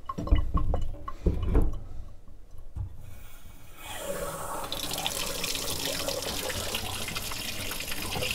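A few low knocks as the Watts 909 reduced-pressure backflow assembly is handled and its outlet shutoff valve opened, then from about four seconds in a steady rush of water into a sink. This is the relief valve dumping, and opening the outlet valve does not stop it.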